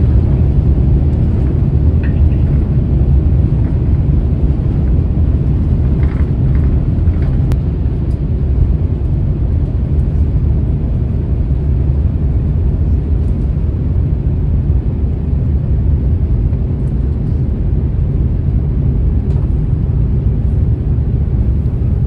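Airbus A350-900's Rolls-Royce Trent XWB jet engines at takeoff power, heard inside the cabin as a loud, steady rumble through the takeoff run and into the climb.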